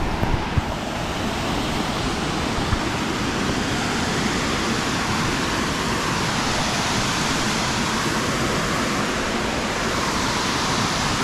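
Large waterfall rushing steadily, an even wash of falling water, with a few low bumps in the first second.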